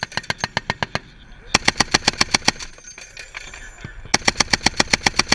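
.50 caliber vehicle-mounted machine gun firing in short bursts of about eight rounds a second. One burst trails off in the first second, a second comes about a second and a half in, and a third starts about four seconds in.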